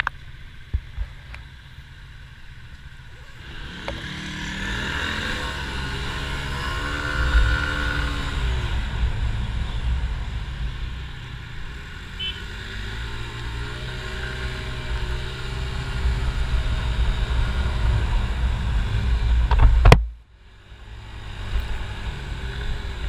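Motor scooter on the move, its engine pitch rising and falling a few times as it speeds up and eases off, under heavy wind rumble on the microphone that cuts off suddenly about 20 seconds in.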